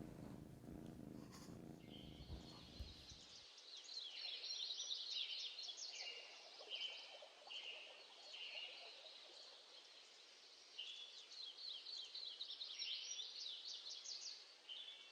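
Faint birdsong: quick high chirps and trills in two spells, about four seconds in and again about eleven seconds in. Before it, for the first three seconds or so, faint room noise with a few soft knocks.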